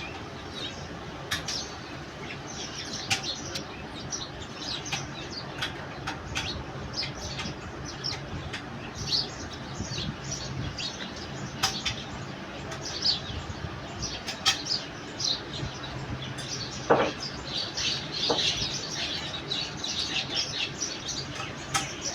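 Small birds chirping on and off, with a few sharp clicks and a faint low steady hum underneath.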